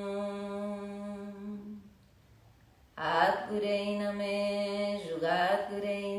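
A single voice chanting a mantra. A long held note trails off about two seconds in, there is a second's pause, and then the next phrase is sung with gliding notes.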